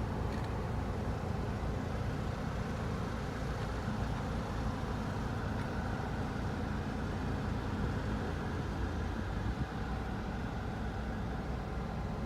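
Steady low rumble inside a Mitsubishi Delica D:5 with its engine and air conditioning running.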